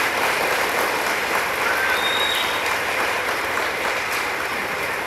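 Audience applauding, a steady clapping that slowly fades toward the end.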